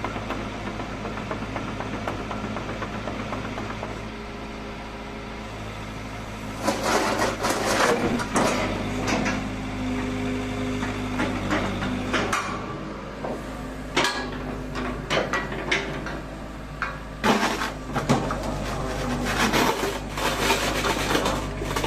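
Kobelco SK75UR-3ES excavator's diesel engine running steadily, with irregular metallic clanks and knocks starting about six or seven seconds in as the machine is worked.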